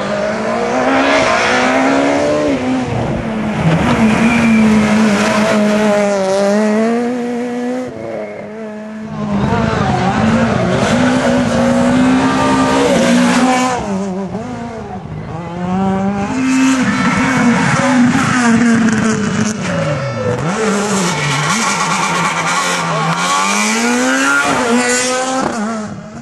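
Super 2000 rally cars, among them a Peugeot 207 S2000, driven flat out one after another. Their naturally aspirated 2.0-litre four-cylinder engines rev high, the pitch climbing through each gear and dropping at each change or lift, with brief lulls between cars.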